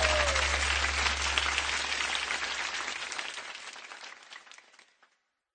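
Audience applause fading out steadily and dying away to silence about five seconds in.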